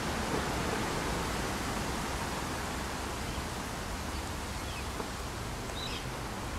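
Steady outdoor wind noise on the microphone, with an unsteady low rumble of buffeting. A couple of faint high chirps come through, one about halfway and one near the end.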